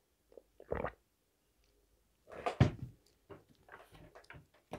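A sip of tea from a glass mug, then a knock as the mug is set down on the tabletop about two and a half seconds in, followed by a few small clicks.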